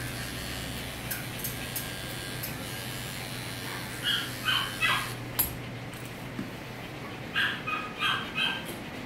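A dog whining in short, high yips: three about four seconds in and three more near the end. Underneath, an electric dog clipper with a snap-on comb hums steadily, then stops partway through.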